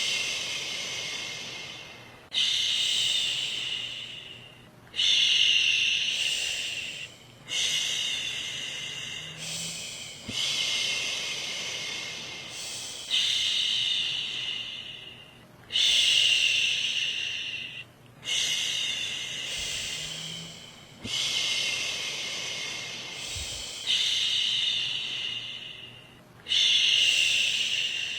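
Woman's voice shushing a baby to sleep: a long hissing "shhh" repeated about every two to three seconds. Each one starts sharply and fades away, with a short break between them.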